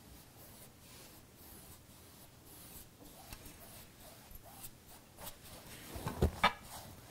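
Paintbrush stroking paint onto a canvas in a run of short, faint scratchy strokes. About six seconds in come two louder sharp knocks.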